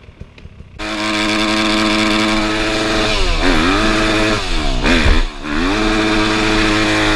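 Enduro dirt bike engine running loud at high revs close to the microphone. It cuts in abruptly about a second in, the revs drop and climb back twice in the middle, then they fall off near the end.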